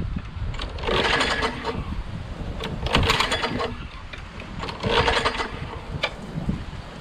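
Briggs & Stratton Quantum 6.5 HP mower engine being pull-started three times, about two seconds apart. Each pull cranks it over with a whirr of the recoil starter, but it never fires: it seems to be getting no spark.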